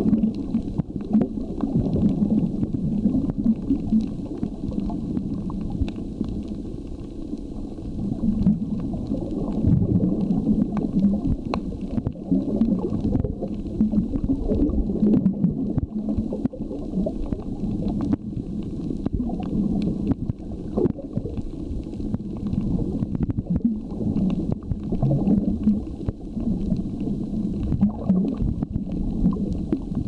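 Muffled underwater noise recorded by a camera below the surface: a low, uneven rumble of moving water, swelling and fading, with scattered faint clicks.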